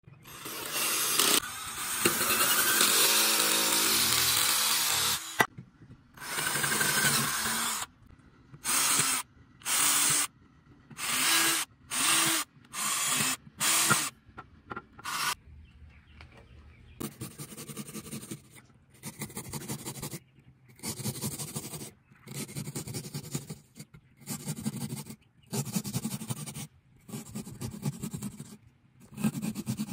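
HART 20V cordless drill spinning a bit into a pumpkin's rind and flesh, run in trigger pulls. One long run comes in the first few seconds, then a string of separate bursts of about a second each, softer in the second half.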